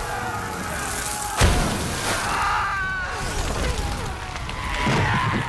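Film battle sound of a fire explosion: a heavy boom about a second and a half in, then blazing fire with many men screaming over it, and a second surge near the end.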